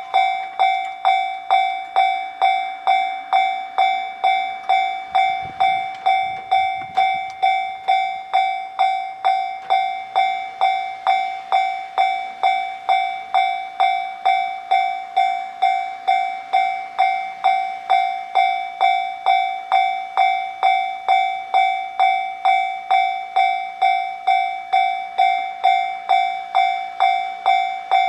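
Japanese railway level-crossing alarm ringing steadily, one pitched tone struck about twice a second, each strike fading before the next; it sounds while a train is approaching or passing. A brief low rumble about five seconds in.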